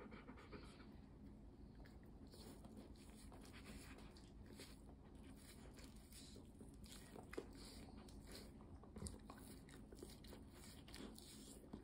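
Golden retriever licking and mouthing at a person's hand: faint, scattered wet clicks and smacks of tongue and mouth.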